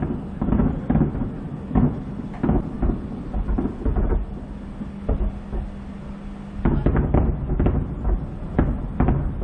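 Distant aerial firework shells bursting in a rapid series of booms, with a denser flurry of bangs about two-thirds of the way in. A steady low hum runs underneath.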